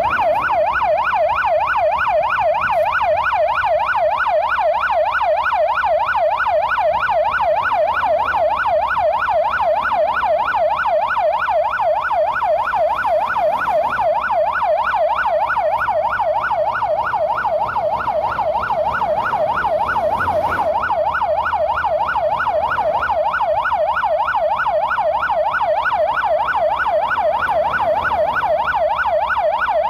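Emergency siren at a crash scene sounding a fast, steady yelp, its pitch sweeping up and down several times a second without a break, most likely from the police car with its lights flashing.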